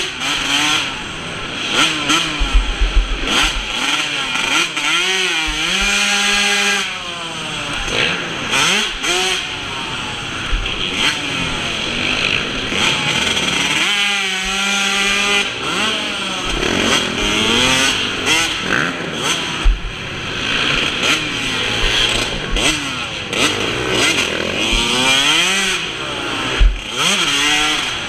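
Yamaha YZ125 two-stroke single-cylinder motocross engine at racing speed, its pitch rising and falling again and again as the throttle is opened and closed through the gears and corners, with short spells of held revs.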